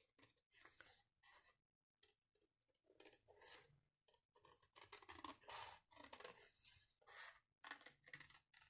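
Scissors cutting paper along a traced pencil line: faint, irregular snips and paper rustle, sparse at first and more continuous from about three seconds in.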